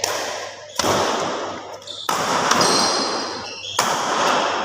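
Game play on an indoor court: three sharp hits about a second and a half apart, echoing in the hall, with high squeaks like shoes on the floor between them.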